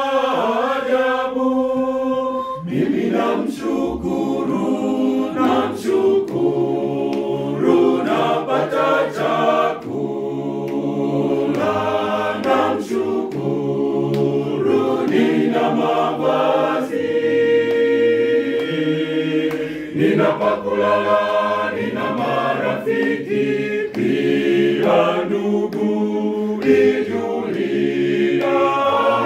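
Mixed choir singing a cappella, several voice parts in harmony; lower men's voices come in about two and a half seconds in.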